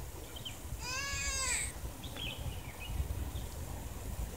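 A single drawn-out animal call about a second in, lasting just under a second, rising and then falling in pitch.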